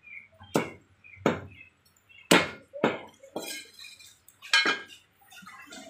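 Cleaver chopping chicken pieces on a wooden log chopping block: about seven sharp chops at an uneven pace, the blade giving a short clink as it strikes.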